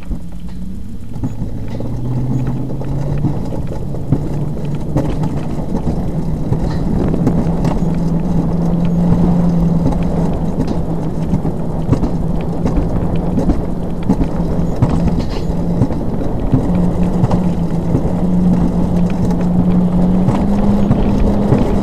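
Alpine coaster sled's wheels running on its tubular steel track: a loud rumble with a humming tone that rises in pitch as the sled gathers speed, with scattered knocks from the rails.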